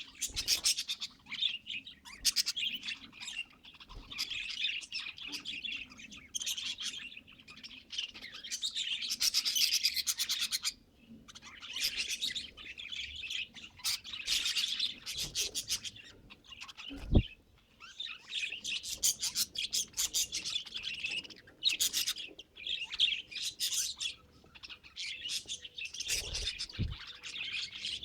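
Pet budgerigars chattering and warbling in rapid bursts broken by short pauses. A single sharp knock sounds a little past the middle, and there are a couple of soft thumps near the end.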